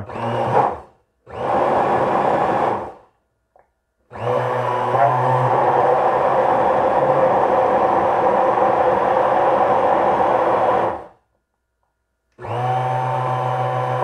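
Mallory Magnific 800 W blender with a glass jar, churning thick carrot-cake batter with flour. It runs in two short pulses, then a long run of about seven seconds, stops, and starts again near the end. The motor lacks the power to pull the heavy batter.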